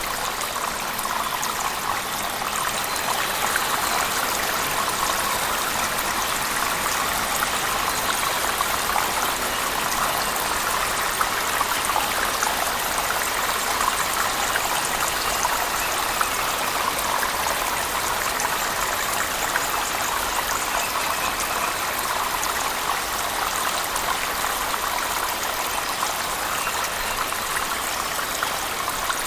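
A cave waterfall together with heavy rain: a steady, even rush of falling water with a fine patter of drops.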